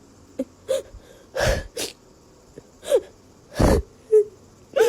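A run of short sneezes, the loudest two about a second and a half and three and a half seconds in, with brief squeaky calls and gasps between them.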